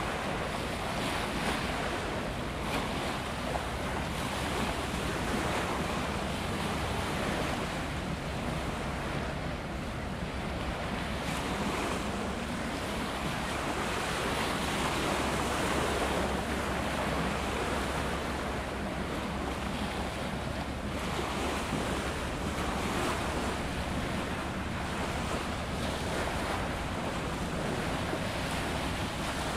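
Wind buffeting the microphone and water washing against a rocky shoreline: a steady rushing noise that swells and eases slowly, over a steady low rumble.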